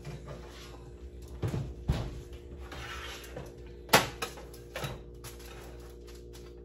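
Cookware clatter: a few sharp knocks and clicks of utensils against a pan, the loudest about four seconds in, over a steady low hum.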